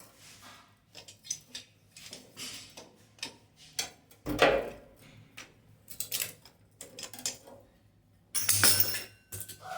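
Irregular metallic clinks, taps and knocks of plumbing tools and tap fittings being handled while a sink mixer is fitted, with a louder clatter about four and a half seconds in and again near the end.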